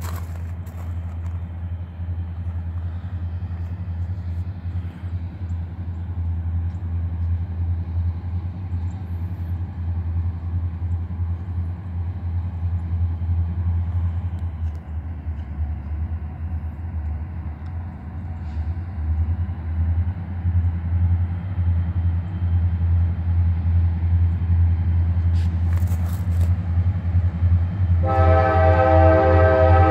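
Approaching CSX SD40-2 diesel locomotives with EMD 16-cylinder two-stroke engines: a low rumble that grows steadily louder. About two seconds before the end, the lead unit's horn starts sounding a steady chord.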